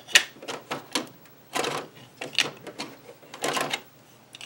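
Plastic Epson ink cartridges being unclipped from the printer's printhead carriage and clacking together in the hand: a sharp click just after the start, then short bursts of clicks and rattles about a second apart.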